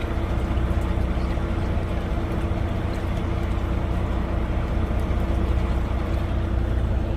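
Fishing boat's engine running steadily: a low, even drone.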